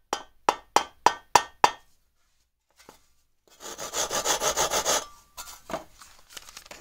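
Workshop tool sound effects: a quick run of about seven sharp knocks, then, after a short pause, a second and a half of rhythmic rasping strokes like hand-sawing, with a few fainter strokes near the end.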